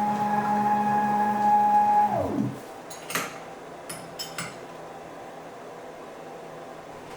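CNC milling machine spindle whining at a steady pitch, then spinning down, its whine falling away quickly a little after two seconds in. A few sharp clicks follow, then only a low steady hum.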